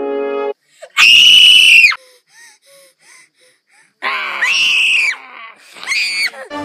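A girl screaming: one long, shrill scream about a second in, then after a pause a second bout of screaming and a short shriek near the end.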